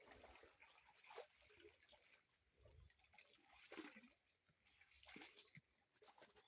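Faint, irregular splashing and dripping of river water as clothes are washed by hand.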